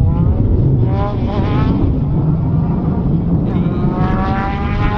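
A 2012 Triumph Speed Triple R's three-cylinder engine revving hard as the motorcycle accelerates, the pitch climbing in several rising pulls. The longest pull is near the end.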